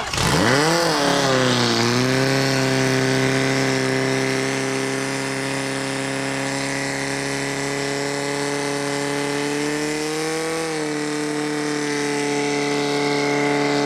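Portable fire pump's petrol engine revving up sharply at the start, then held at high, steady revs while it pumps water out to the attack hoses. Its pitch dips briefly about two seconds in and drops a little about eleven seconds in.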